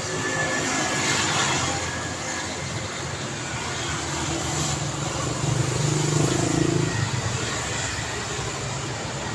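Road traffic: vehicles passing with tyre hiss, and a low engine drone that grows louder about six seconds in, then fades.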